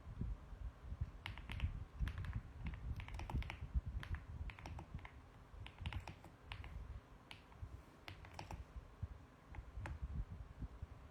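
Typing on a mechanical keyboard: irregular runs of key clicks with deeper thocks as the keys bottom out, thinning to a few strokes near the end.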